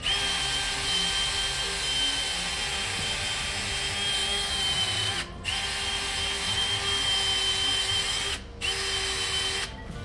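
A handheld power tool running at a steady speed with a high whine. It is let off briefly twice, about five and eight and a half seconds in, and stops near the end.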